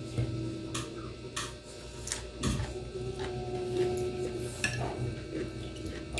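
A metal spoon clicking and scraping against a ceramic plate of rice and stew while someone eats, a handful of sharp, irregular clinks.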